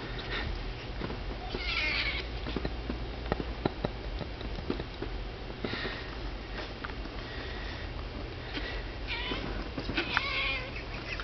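Kitten meowing in short cries several times, about two seconds in, around six seconds and again near the end, as it wrestles with a bulldog puppy, with small knocks and scuffles between the cries.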